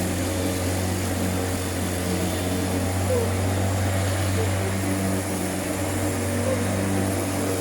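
Electric lawnmower motor running with a steady hum.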